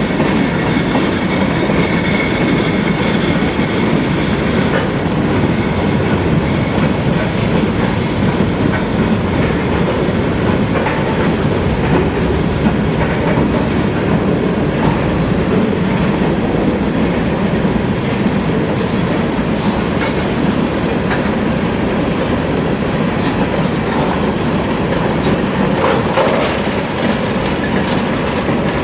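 Freight train cars rolling past, a steady loud rumble of steel wheels on rail with rhythmic clickety-clack over the rail joints.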